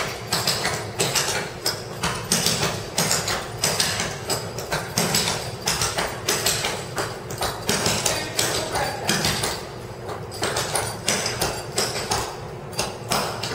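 Clogging taps on a hardwood floor: a steady run of sharp tapped-shoe strikes, several a second, as the dance steps are walked through.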